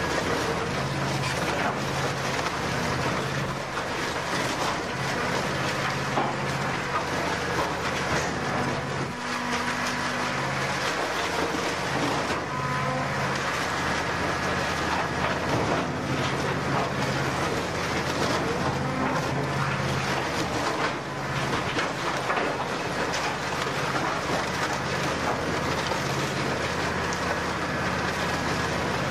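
Industrial scrap-metal shredder tearing up a car body: continuous crunching, cracking and screeching of sheet metal being ripped apart, over the machine's low drone that rises and falls as it takes the load.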